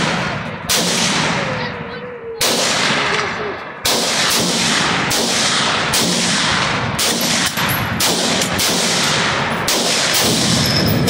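A rifle fired repeatedly: about a dozen sharp shots at uneven intervals, a half second to a second and a half apart, each with a long echoing tail. Some hits set off Tannerite charges in the pumpkins, which explode.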